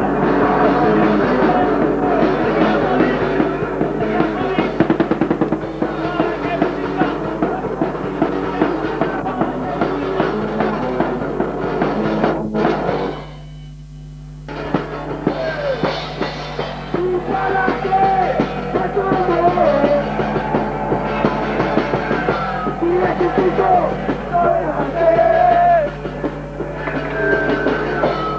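Loud rock-style music with a drum kit. It breaks off for about a second and a half midway, leaving a low steady hum, then starts again.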